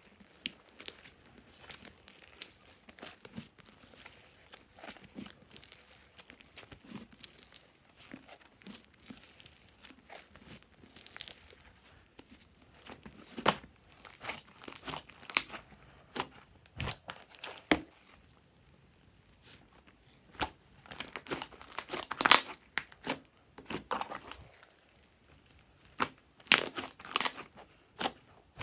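Hands squeezing and kneading a large lump of fluffy slime, giving irregular wet crackles and pops. The crackles are sparse at first and come in louder clusters in the second half.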